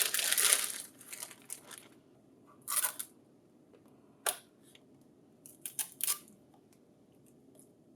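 Packaging rustling as a new printer stapler unit is unpacked, then a few short clicks and scrapes of handling.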